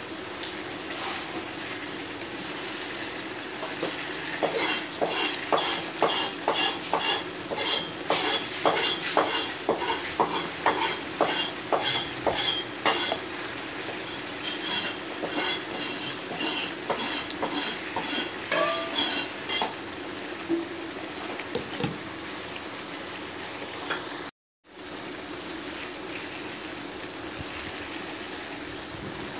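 Chicken pieces deep-frying in oil in a nonstick pan, a steady sizzle, with metal tongs clicking against the pan as the pieces are turned, the clicks coming thick and fast in the first half and thinning out after. The sound cuts out for a moment about three-quarters of the way through.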